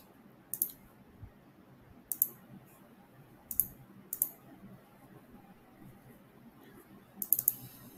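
Sharp clicks of a computer mouse and keyboard, one at a time every second or two, then a quick run of several clicks near the end.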